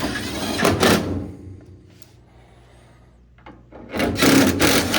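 Two bursts of quarter-inch hex-head screws being driven into a dryer's control panel, one at the start and one about four seconds in.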